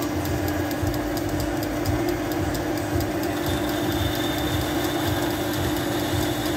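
Metal lathe running under cut, its tool turning down a metal bar and peeling off curled chips: a steady motor and gear hum with a fast, even ticking. A thin high whine joins about halfway through.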